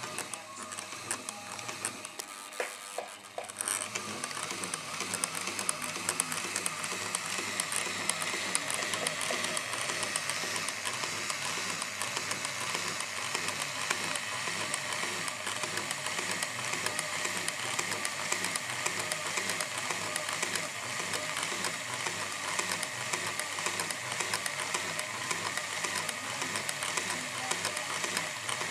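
IKEA SY sewing machine, stripped to its bare frame with the mechanism exposed, running fast with a rapid, even mechanical clatter of needle bar and linkages. It dips briefly about three seconds in, then runs steadily.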